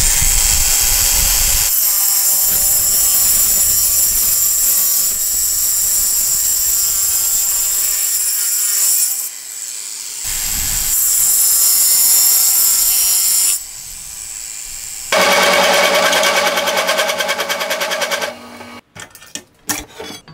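Makita GA4033 angle grinder with a diamond cutter blade cutting a groove in a concrete paver, its motor whine steady under load, with a short dip about nine seconds in and a stop at about thirteen seconds. About fifteen seconds in, a different power tool runs loudly for some three seconds, then a few scattered knocks.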